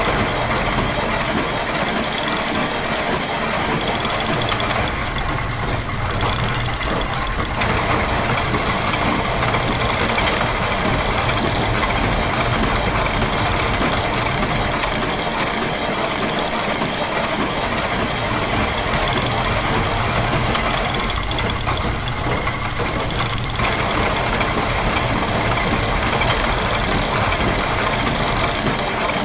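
Layered loops of machine sounds, ratchets and meshing gears clicking and rattling over a steady mechanical drone, forming one dense, continuous clatter. The high clicking layer drops out twice for about two seconds each time.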